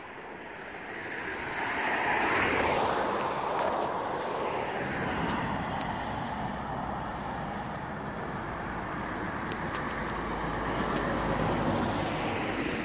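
Road traffic: cars passing on a road, the loudest swelling about two seconds in and another near the end.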